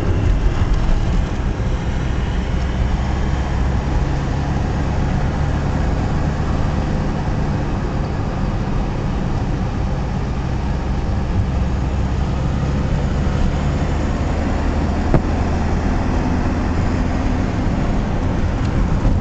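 Steady engine drone and tyre and road noise inside the cabin of a moving car cruising on a highway.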